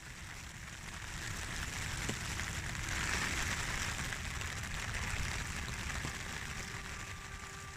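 Rain falling, an even hiss that grows louder towards the middle and then eases off.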